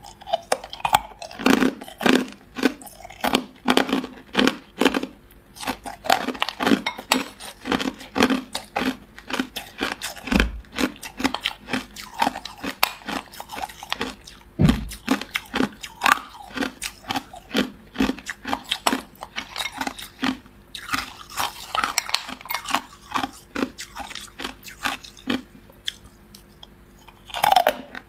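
Ice cubes dusted with matcha powder being bitten and chewed, a long run of sharp, rapid crunches with only brief pauses.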